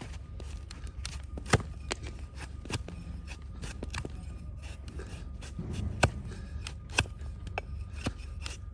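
Crisp, irregular cracks and clicks of a hoof-trimming blade shaving hard horn from a donkey's hoof. A few sharp cracks stand out among softer ones.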